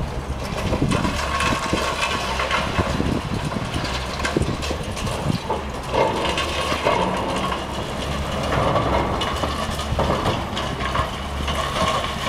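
Long-reach demolition excavator's diesel engine running steadily, with irregular cracking, crunching and clattering of concrete and rebar as its boom-mounted crusher jaw bites into the building frame and debris falls.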